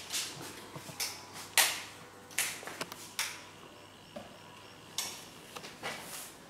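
Footsteps on a hard tiled floor: short scuffs at a walking pace, roughly one every 0.8 seconds, with a pause of about a second and a half in the middle.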